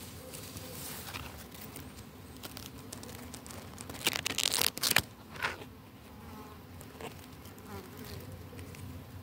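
A flying insect buzzing close by, with a low hum that wavers in pitch. About four seconds in comes a loud, crackly rustle of grass and leaves against the microphone, lasting about a second.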